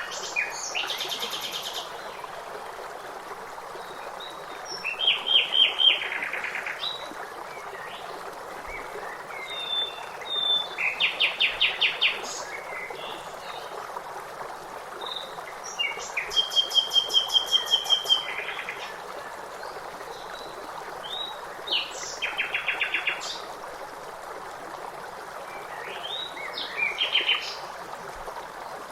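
Songbirds singing over steady running water. Each phrase is a quick trill of rapidly repeated notes lasting one to two seconds, and a phrase comes about every five seconds.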